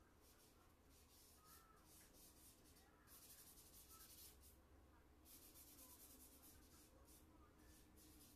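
Faint rubbing of charcoal on drawing paper, in hissing strokes of a second or two with brief pauses between them.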